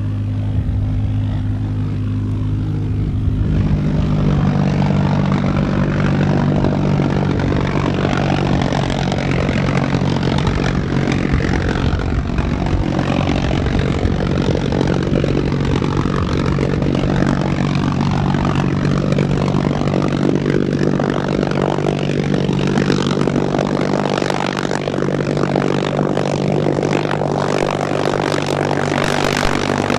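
V-1 buzz bomb pulse jet (Argus As 014) running with its loud, steady buzzing drone; its note steps up about three or four seconds in and then holds.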